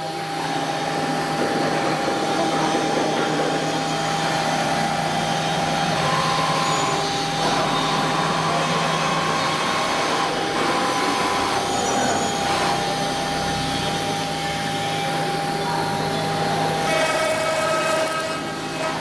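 CNC router machining: a steady mechanical noise with a constant high whine from the spindle, plus a few brief higher tones in the middle. The whine stops near the end.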